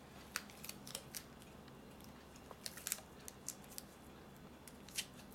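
Clear cellophane tape crinkling and crackling as it is wrapped and pressed around a raw egg by hand: faint, scattered little clicks and rustles.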